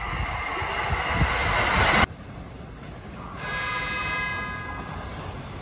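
An express electric train approaching, its rushing rail noise growing louder until it cuts off abruptly. Then a JR Kyushu limited express train sounds its horn, a steady chord of several tones held for about a second and a half.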